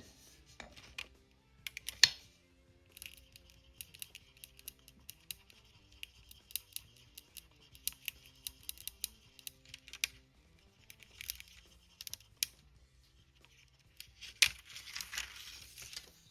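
Small clicks and papery rustles of a sticker sheet being handled and a sticker being worked onto a small model car. The clicks are sharpest about 2 s in and about 14.5 s in, with a brief rustle just after the second, over faint background music.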